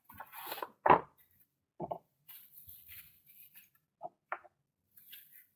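Handling noise of metal flashlights being moved and set down: a few short knocks and clicks, the loudest about a second in, with light rustling between.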